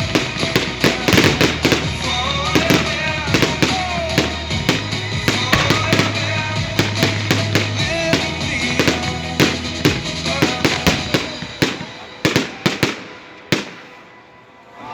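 Fireworks finale: a rapid, dense run of bangs and crackles over pop music, thinning to a few last bangs about twelve seconds in before dying down near the end.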